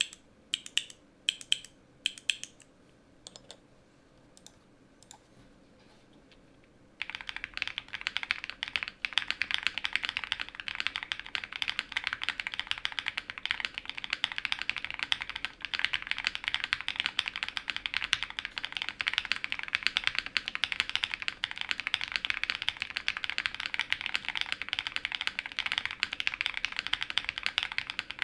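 QK100 gasket-mount mechanical keyboard with a polycarbonate plate, lubed and filmed Owlab London Fog switches and PBTFans Vior PBT keycaps: a few separate key clicks, then fast continuous typing starting about seven seconds in.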